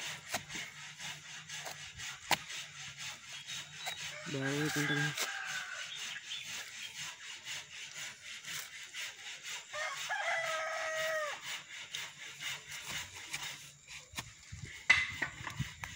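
A wooden stick knocks and rubs faintly against a kithul palm's flower stalk as the flower is beaten before tapping. A rooster crows about ten seconds in, holding its note and then dropping, and a shorter call comes about four seconds in.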